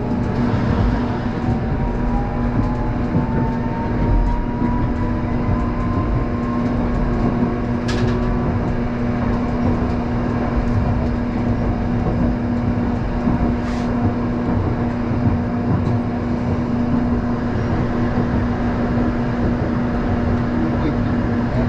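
Hakodate City tram running, heard from inside the car: a steady rumble and hum, with a whine that rises in pitch over the first several seconds as the tram gathers speed. Two sharp clicks come along the way.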